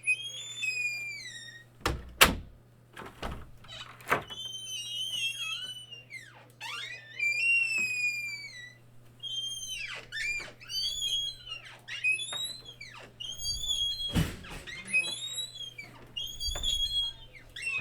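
Squeaky bedroom door hinges creaking again and again as the door is swung to and fro: long high squeals that slide up and down in pitch, with a few sharp knocks of the door, the loudest about two seconds in and again past the middle.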